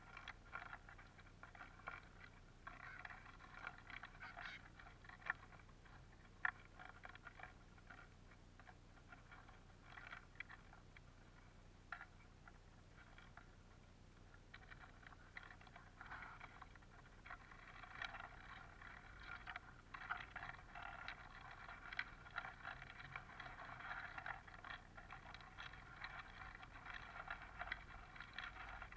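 Faint, irregular rattle and crackle of Eurasian siskins pecking and rummaging through a tray of black sunflower seeds, with sharp clicks of beaks and husks, busier in the second half.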